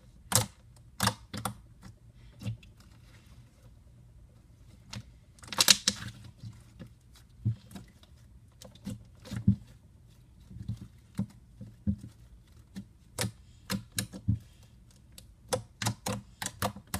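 Butter slime being kneaded and squished by hand, giving irregular wet clicks and pops, with a quick loud run of pops about six seconds in.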